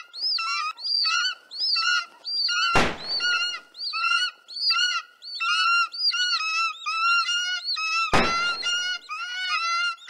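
Birds screeching as a film sound effect: the same short, arched high call repeated over and over without a break. Two gunshots cut through it, the first about three seconds in and the second about five seconds later.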